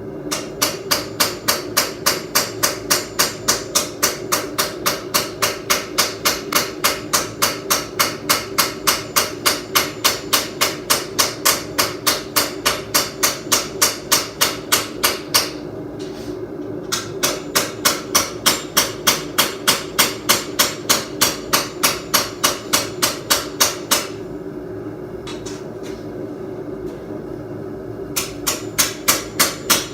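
Hammer blows on hot steel at the anvil, forging a blade, in quick even runs of about three strikes a second, with two short pauses. A steady drone runs underneath.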